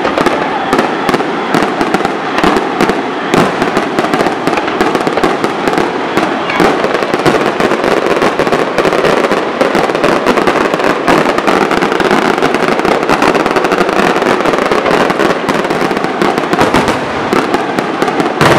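Fireworks display: a rapid, continuous stream of shell bursts and crackling, the bangs running together over a dense hiss. A sharper bang comes near the end.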